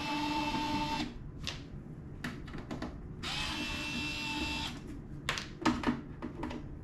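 Power screwdriver backing out panel screws, running twice for about a second each time with a steady whine. Small clicks and rattles of screws and tools come in between.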